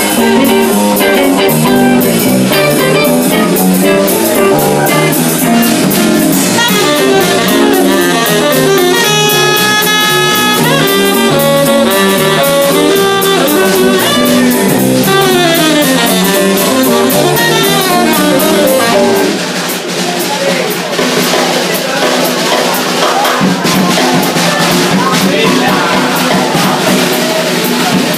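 Small jazz combo playing live: saxophone, guitar, upright bass and drum kit. About two-thirds of the way through the lowest notes drop out and the drums and cymbals come forward.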